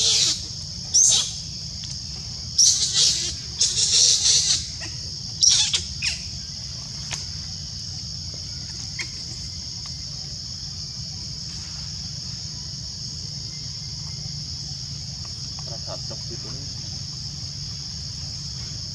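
Steady high drone of cicadas or other insects in the forest. Several short, loud, high-pitched calls cut through it in the first six seconds, then stop.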